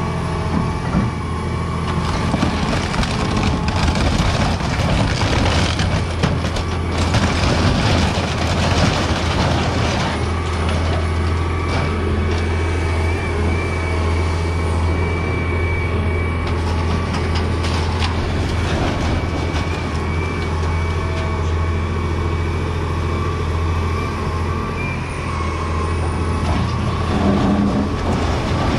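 John Deere 350 excavator's diesel engine running steadily, with a thin steady whine above it and irregular knocks and crashes of demolition debris, thickest in the first ten seconds or so.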